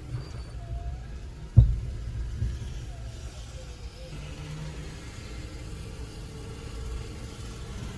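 Low steady rumble of strong wind and rain around a car, with one sharp thump about a second and a half in.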